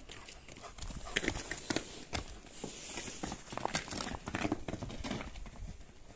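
Irregular footsteps on straw-strewn dirt: soft crunches and taps with some rustling of the straw.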